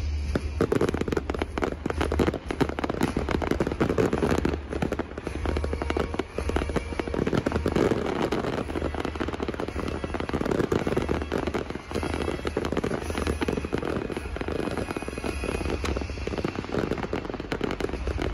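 Fireworks display going off without a break: a dense barrage of rapid pops and crackling bangs.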